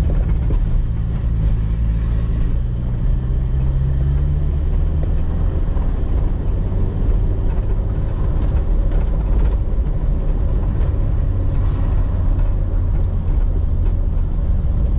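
Car engine and road rumble heard from inside the cabin while driving slowly over a dusty, partly unpaved road. A steady engine hum fades about four seconds in.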